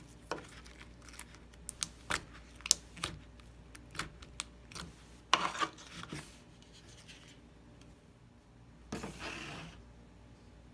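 Slime being worked by hand: a run of sharp clicks and pops over the first six seconds, then a short squishing rustle about nine seconds in.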